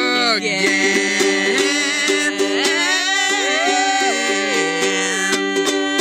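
Music: a voice singing long, sliding notes over ukulele, with quick strummed strokes near the end.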